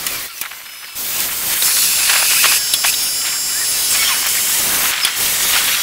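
Automatic rollover car wash spraying water onto a car, a steady hiss that comes back louder about a second in.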